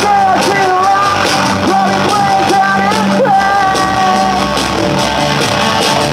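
A rock band playing live and loud, with drum kit, electric guitar and keyboard, and a voice singing long, wavering notes over it.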